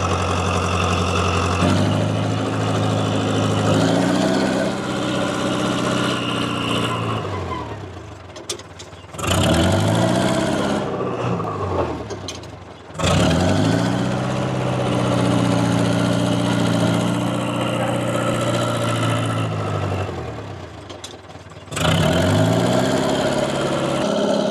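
Diesel engine of a Dresser TD7E crawler dozer working under load while it knocks over stumps. It revs up hard about four times, holds for several seconds, then the pitch sags and falls away as the throttle comes off.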